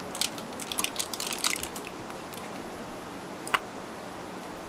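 Utensil digging into sticky rice stuffing in crinkling aluminium foil: a cluster of short crackles and clicks in the first two seconds, then one sharp click about three and a half seconds in.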